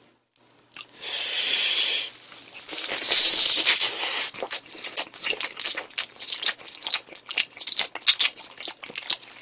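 Biting and tearing into a sauce-coated fried chicken drumstick close to the microphone, with two loud hissing sucks in the first few seconds. Then wet chewing, with many quick mouth clicks and smacks.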